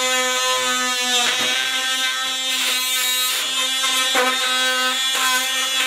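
Cordless oscillating multi-tool buzzing loudly and steadily at one pitch as its blade cuts old wax comb away along the side of a wooden hive frame, the pitch dipping briefly about a second in and again about four seconds in as the blade catches.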